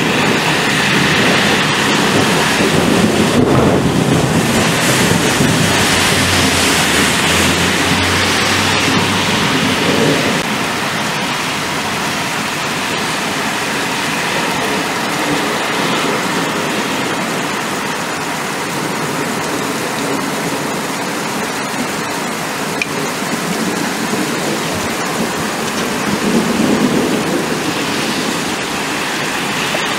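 Thunderstorm: steady rain, with thunder rumbling through roughly the first third and a shorter rumble near the end.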